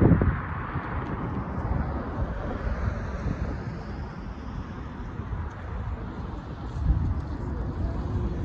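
Wind buffeting the microphone in uneven gusts, over light road traffic; a passing car's tyre hiss fades away in the first couple of seconds.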